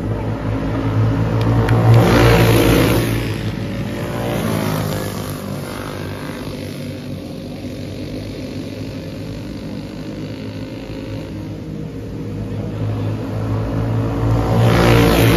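Dirt-track race car engines running hard as the cars circle the track: loud as they pass close by about two seconds in, fading as they go round the far side, then building again as they come back past near the end.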